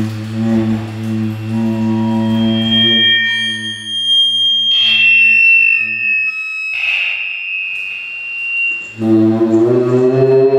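Electronic noise music built from sustained tones and speaker feedback: a steady low hum with overtones, then high whistling feedback tones over the middle that break off abruptly. The low hum comes back about nine seconds in and bends slightly upward near the end.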